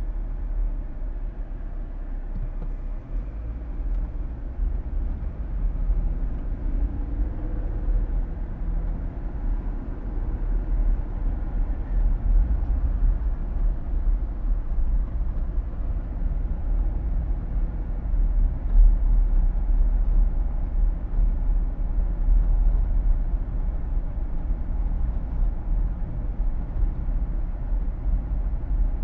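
Steady road and tyre rumble inside a moving car's cabin, deep and even, with the air-conditioning fan's hiss running underneath.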